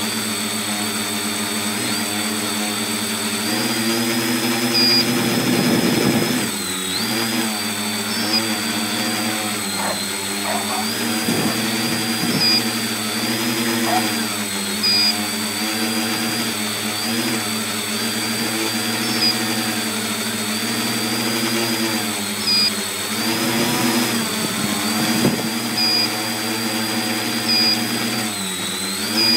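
Tricopter's three electric motors and propellers buzzing in flight, heard up close from the phone mounted on the frame. The pitch wavers up and down with the throttle, dipping about six seconds in and again near the end.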